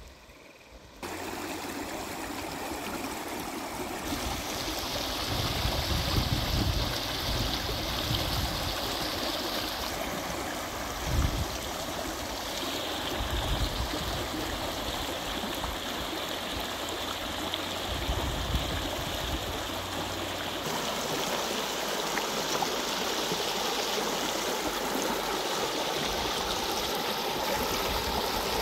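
Stream water running steadily, a continuous rushing and trickling, with low rumbles of wind on the microphone underneath. The sound changes character abruptly a few times.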